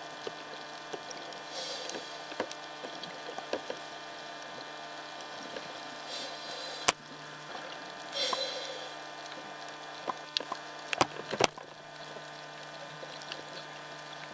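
Underwater, a scuba diver's exhaled bubbles rush past the camera housing in three bursts a few seconds apart, over a steady low hum. A few sharp clicks and knocks, the loudest about seven seconds in and twice more near eleven seconds.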